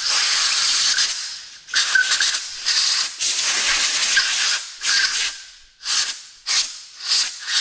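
Compressed-air blow gun blasting out threaded bolt holes in a steel yoke, in a string of hissing bursts: a long one first, then shorter, quicker ones toward the end, with a faint whistle in some of them.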